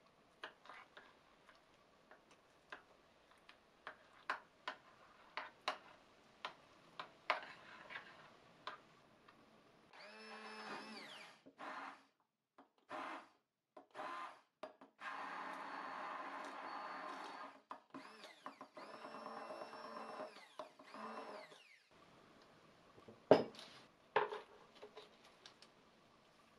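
A metal spoon clicking and scraping against a glass bowl as soft curd cheese is stirred. Then a stainless immersion blender whirs in several bursts, its motor pitch rising at each start and falling at each stop, as it purées the mixture. A single sharp knock comes about 23 seconds in, followed by a few light clicks.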